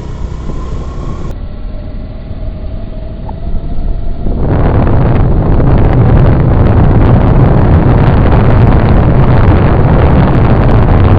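Road noise of a moving vehicle, turning much louder and rougher about four and a half seconds in.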